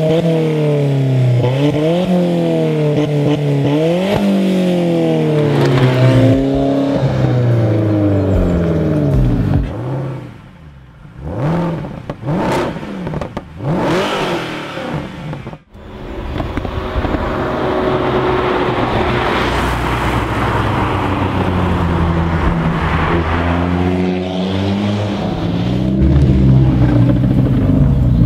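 Alfa Romeo 4C's mid-mounted 1.75-litre turbocharged four-cylinder revving, its pitch climbing and dropping back twice and then falling away. About a third of the way in the engine sound breaks off for a few seconds of short sweeping sounds. It then returns as a steadier run of the engine under a layer of road noise.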